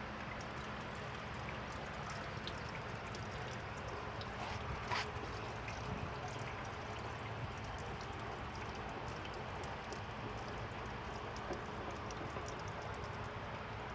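Liquid pouring in a steady stream during an engine service, with a single light knock about five seconds in.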